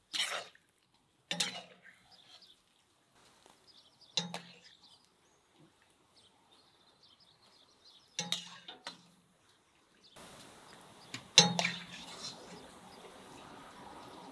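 A metal spatula clinking against a clay bowl as fried meat pieces are dropped into it: five separate sharp clinks, each with a short low ring, the loudest about eleven seconds in. A faint steady hiss comes in near the end.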